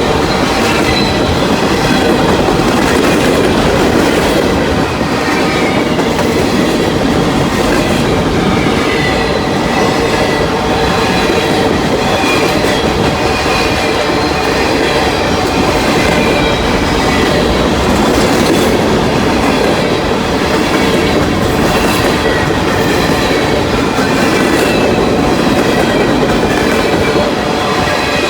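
Freight train cars rolling steadily past, wheels clicking over the rail joints, with a faint high wheel squeal at times.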